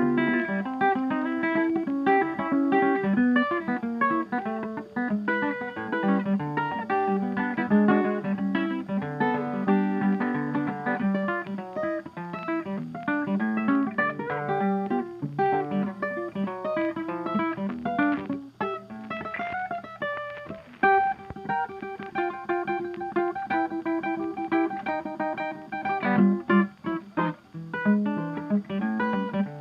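Background music: guitar playing a quick run of plucked notes.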